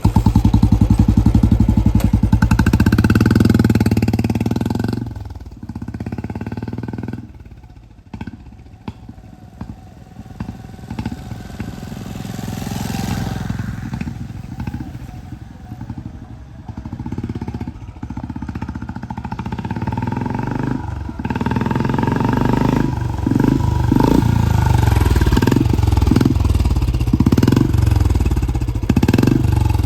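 Royal Enfield Electra 350 single-cylinder engine through an HKK Indori aftermarket silencer, starting on its electric starter and running with a steady low thump. It is loud at first, drops and wavers for a long stretch, then grows loud again for the last several seconds.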